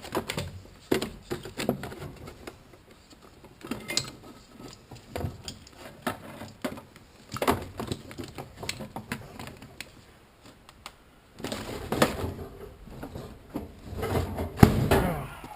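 Irregular metallic clicking and clattering of hand tools being handled on an engine, with denser bursts of clatter near the end.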